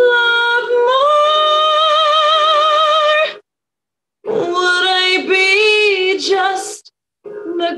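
A woman singing a slow ballad solo over a video call: she holds a long note with vibrato, then sings a second phrase with sliding pitch. The sound cuts out completely twice, about three and a half seconds in and near the end.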